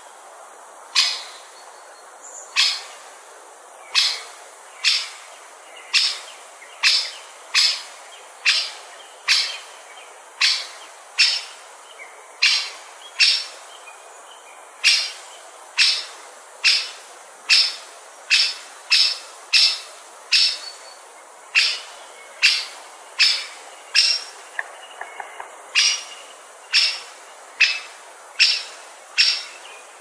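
Great spotted woodpecker giving single sharp 'kik' calls, repeated about once a second.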